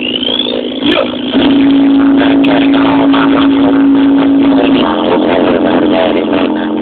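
Bass-heavy music played loud through a car's subwoofer system. A long held bass note runs from about a second and a half in until nearly five seconds.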